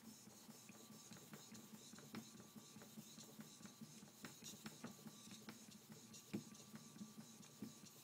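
Kanna plane blade in a roller honing guide being worked back and forth on a wet suita natural whetstone: a faint steady rasp of steel on stone with many small ticks.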